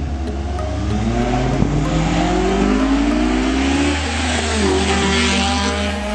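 Honda Accord Euro R CL7's four-cylinder engine revving hard as the car accelerates past, its pitch climbing over the first few seconds, then dropping and climbing again. A steady music beat runs underneath.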